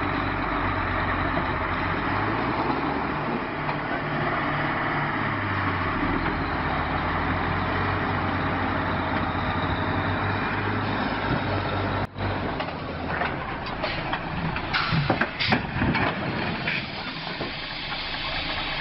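Diesel engine of a loaded logging truck running steadily. After a brief break about two-thirds of the way through, a run of irregular knocks and crashes follows as the truck tips over under its load of logs.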